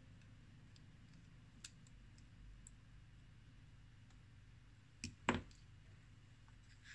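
Faint clicks of small metal tools and parts being handled while working inside an iPhone 6, with two sharper clicks in quick succession about five seconds in, over a low steady hum.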